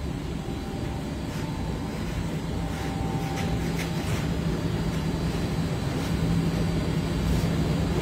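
Steady low hum of running macaroni-factory machinery, with a few faint clicks and knocks.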